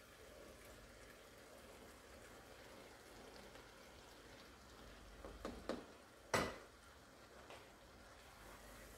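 Fried okra scraped from a frying pan into a pot of cooked meat with a wooden spatula: faint scraping and stirring, a few soft clicks, and one sharp knock about six seconds in from the utensil or pan striking the cookware.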